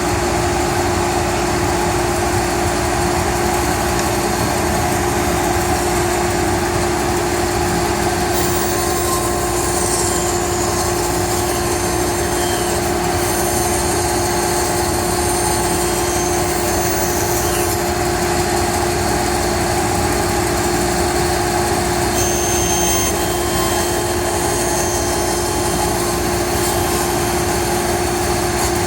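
Band saw running steadily, a constant machine hum with one steady tone through it.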